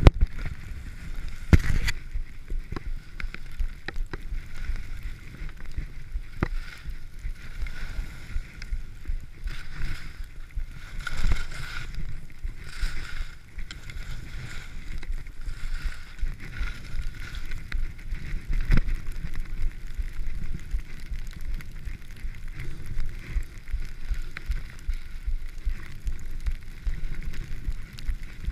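Skis running through fresh powder snow, a steady swishing rumble with wind buffeting the camera microphone and occasional sharp knocks.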